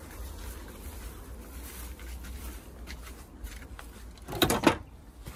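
A few faint small knocks and rustles, then, about four and a half seconds in, a wooden plank shed door is unlatched and pulled open with two loud knocks close together.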